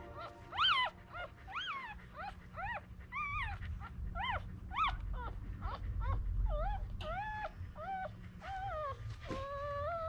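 Day-old miniature Australian cattle dog puppies squeaking and whimpering: short high cries that rise and fall about twice a second, turning into longer, steadier wails near the end.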